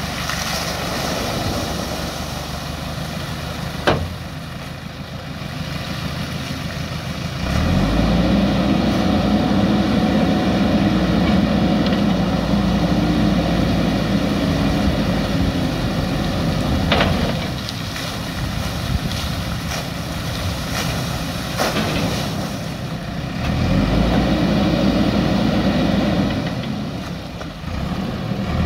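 JCB backhoe loader's diesel engine running, stepping up to a louder, heavier run twice for several seconds at a time as the loader arm works, with water pouring out of the lifted front bucket and splashing into the river.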